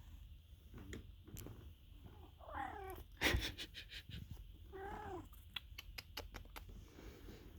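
A cat meows twice, two short calls each rising and then falling in pitch. A sharp click comes just after the first meow, and a quick run of clicks follows the second.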